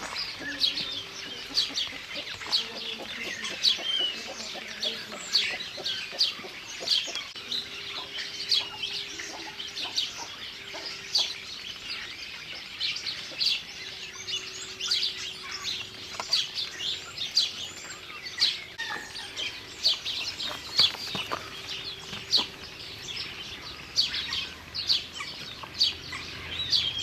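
Many small birds chirping in quick, short, high notes, several a second and without a break. A faint steady hum comes and goes through the middle.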